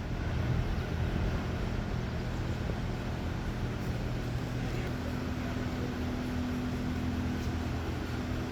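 A machine or engine running steadily with a low hum, a faint higher tone coming in about five seconds in.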